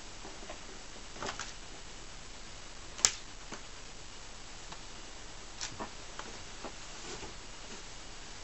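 Scattered light clicks and taps over a steady hiss, the sharpest one about three seconds in: cats pawing and scrabbling at a rug on a wooden floor.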